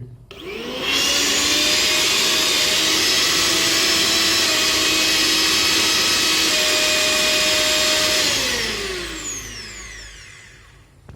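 Pigeon Gusto 550-watt mixer grinder motor with an empty jar fitted, spinning up about half a second in and running at speed with a steady high whine. Its pitch steps slightly twice. Near the end it is switched off and winds down, its pitch falling.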